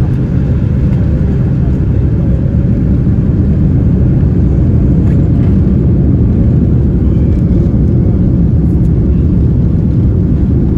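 Steady low rumble heard inside the cabin of a Boeing 787-9 as it rolls along the ground for takeoff, engine and wheel noise growing slightly louder a few seconds in.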